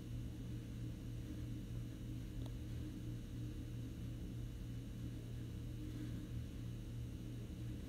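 Steady low electrical hum with no change in pitch or level; no stitching from the machine is heard.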